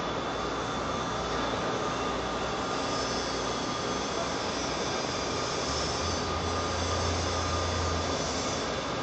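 Steady, even rumbling noise, with a low hum joining for about two seconds past the middle.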